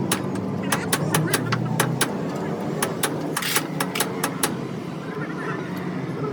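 An engine running steadily, with a quick, irregular series of sharp clicks or knocks over it that thin out about two-thirds of the way through.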